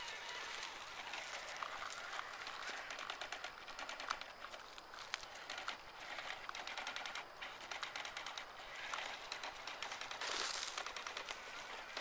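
Toy RC backhoe driving over dirt: a fast, irregular clicking rattle from its small electric drive motor, plastic gears and wheels, with a short scraping hiss about ten seconds in.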